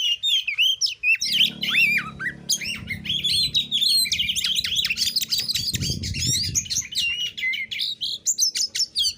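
Oriental magpie-robin (kacer) singing nonstop: a fast, varied stream of sharp whistles, chirps and harsh squawky notes, the rapid aggressive 'narung nembak' style used to provoke rival males.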